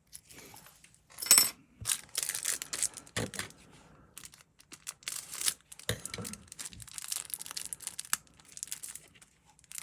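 Plastic packaging crinkling and tearing while being opened by hand, with irregular crackles and small sharp clicks, the loudest about a second in.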